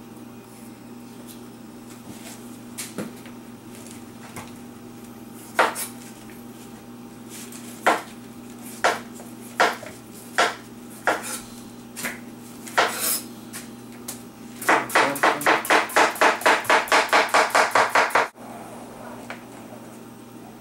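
A kitchen knife cutting a green honeydew melon on a wooden cutting board: scattered knocks of the blade against the board as the rind is trimmed, then a quick, even run of slicing strokes, about four a second, that stops suddenly. A steady low hum runs beneath.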